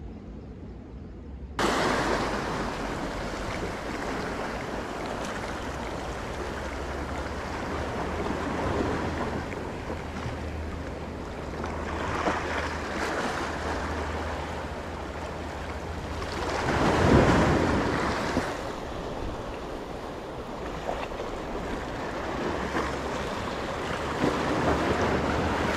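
Small sea waves washing in against a rock breakwater, with wind rumbling on the microphone. The wash swells and eases several times, loudest about two-thirds of the way through; the first second or so is fainter.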